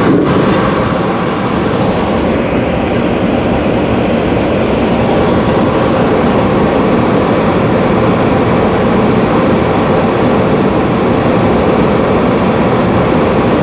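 Dometic AFMD30121A RV furnace running on a new OEM control board: a steady rushing noise of the blower fan and burner as it fires up. The old board was corroded, which is why the furnace had not been sparking.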